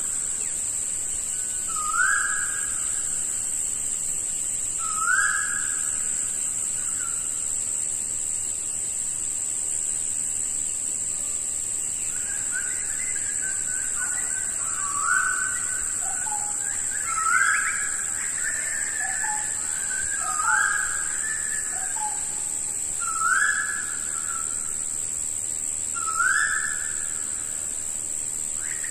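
Jungle ambience: a bird repeats a short rising whistled note about every three seconds, and other birds chirp for a while in the middle. A steady high-pitched drone runs underneath.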